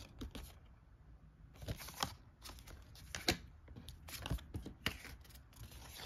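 Stiff cardstock role-playing game cards being handled: scattered short rustles and light clicks as cards are slid apart, set down on the stacks and picked up again.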